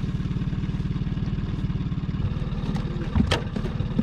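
Fishing boat's motor running steadily with an even pulse, with a couple of sharp knocks about three seconds in.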